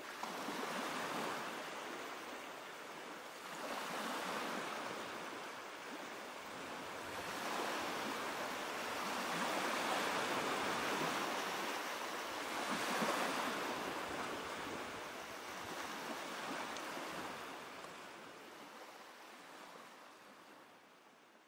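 Waves washing in, the sound swelling and easing every few seconds, then fading out near the end.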